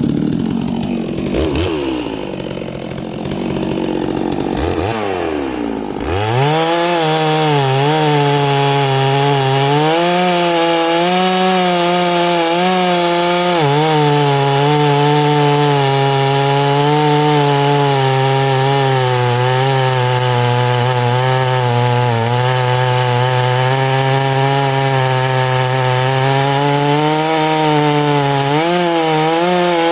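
Neo-tec NS892 chainsaw with .404 chain cutting wood at full throttle. For the first few seconds the engine note wavers and sweeps up and down; then it settles into a steady, loud note under load, sagging briefly a few times as the chain bites.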